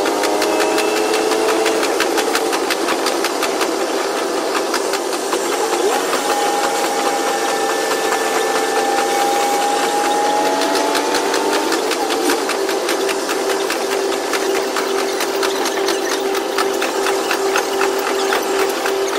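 KiHa 122 series diesel railcar under way, heard sped up to double speed: the engine and drive give steady whining tones that slowly drift in pitch, over a fast, dense clatter of wheels on rail.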